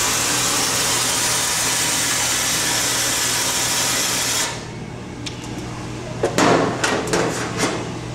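Metcraft pneumatic water valve running, with water spraying from its outlet into a stainless steel sink as a steady hiss that cuts off suddenly about halfway through as the valve shuts off at the end of its cycle. Several clicks and knocks of parts being handled follow.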